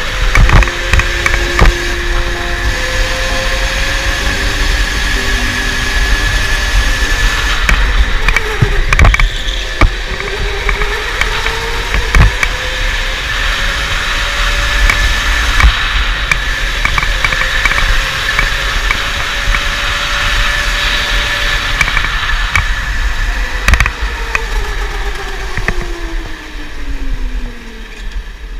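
Electric go-kart motor whining, its pitch rising and falling with speed through the corners, over a low rumble with occasional knocks. Near the end the whine falls away as the kart slows.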